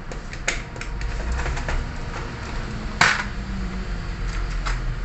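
Small sharp clicks and taps from handling multimeter probes and a graphics card on a repair bench, with one louder click about three seconds in, over a low steady hum.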